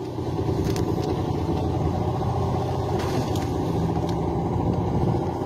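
A small fishing boat's engine running steadily, a low rumble, with a few faint knocks.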